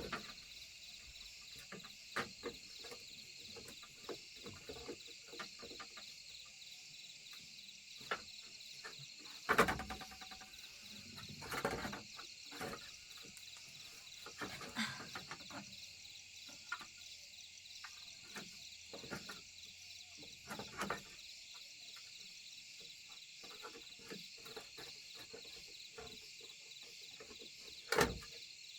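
Steady chorus of crickets or other insects, a fine pulsing hiss, with scattered faint clicks and knocks; two louder knocks come about ten seconds in and near the end.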